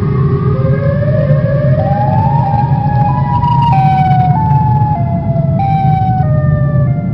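Dark horror ambience: a steady low rumbling drone under eerie pitched tones. The tones slide slowly upward for about three seconds, then drop in a series of short steps.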